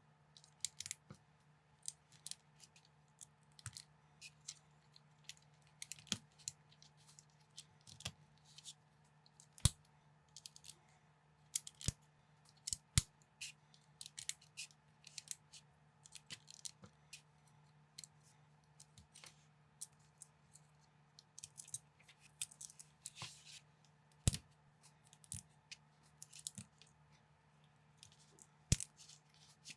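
Plastic LEGO bricks clicking and clattering as they are handled and snapped together, in irregular sharp clicks several a second with a few louder clacks, over a faint steady hum.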